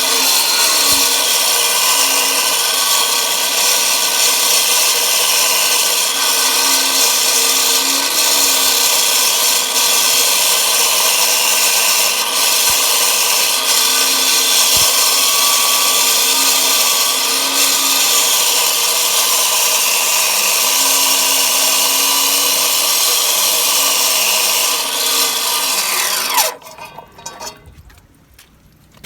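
Spun concrete pile cutting machine running steadily under load with a high, grinding saw noise; it shuts off about 26 seconds in with a falling whine as it spins down.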